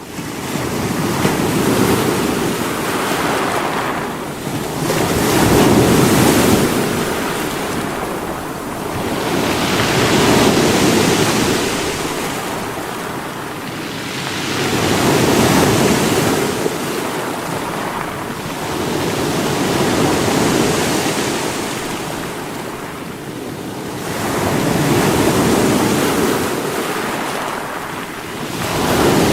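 Sea waves breaking and washing against rocks, surging roughly every five seconds.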